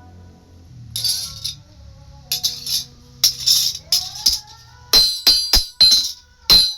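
Background music with shaker-like rattles, then a quick run of about six sharp, ringing strikes in the second half.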